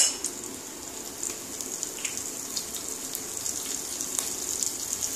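Cumin seeds and chopped green chillies sizzling in hot oil in a non-stick kadai: a steady, high hiss with small scattered crackles, after a brief sharp noise right at the start.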